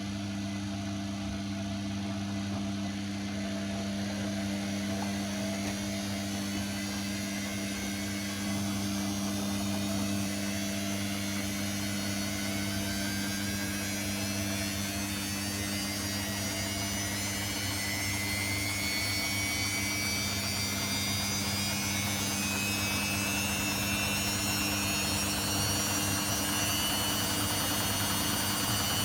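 Washing machine running: a steady low hum under a high motor whine that rises slowly in pitch, the drum speeding up.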